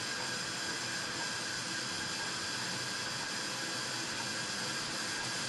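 Sliced onions frying in a little oil in a pan heating on full gas, giving a steady, even hiss.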